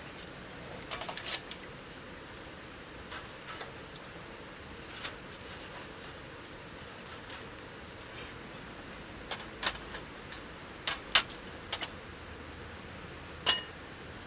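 A dozen or so scattered sharp clicks and light clinks at uneven intervals, the last near the end ringing briefly like metal or glass.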